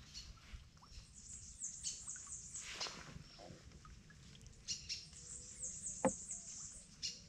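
Birds chirping faintly: short, high, falling notes repeated on and off, with a couple of soft knocks, one about three seconds in and another about six seconds in.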